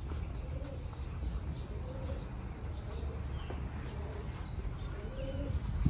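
Small birds chirping in quick, scattered calls over a steady low rumble of background noise.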